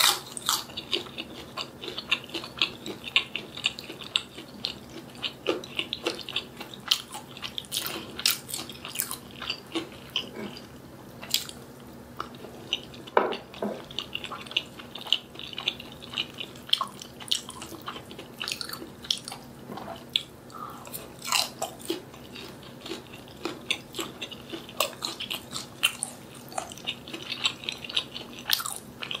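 Close-miked chewing and biting of food, with many irregular wet mouth clicks and smacks.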